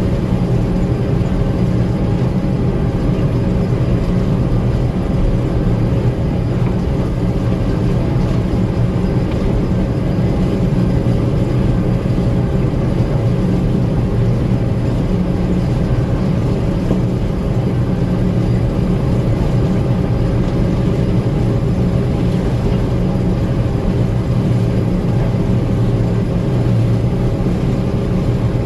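Gleaner M2 combine running steadily under load, a constant engine and machinery drone with a low hum that holds even throughout.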